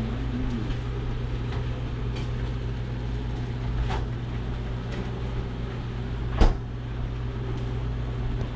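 A steady low hum with a few faint clicks, and one sharper knock about six and a half seconds in.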